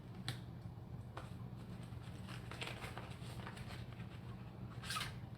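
Scattered light clicks and knocks of small hand tools being picked up and handled, the loudest near the end, over a steady low hum.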